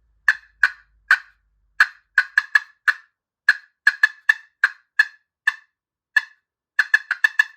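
Turkey pot call played with a striker, making a series of about twenty short, sharp pops: a turkey cut, the call of an excited bird. The pops come at an uneven pace and bunch into a quick run near the end.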